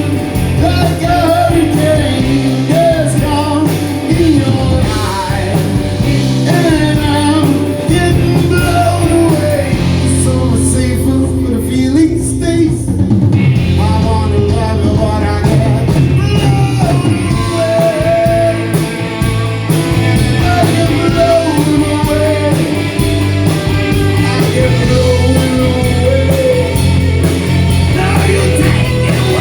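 Live blues-rock band playing at full volume: drums, bass and electric guitar, with a singing voice over them.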